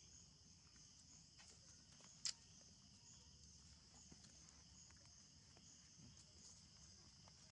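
Faint, steady high chirring of insects with a slight pulsing. Over it come a few soft clicks and rustles of a monkey stepping on dry leaf litter, with one sharper click a little past two seconds in.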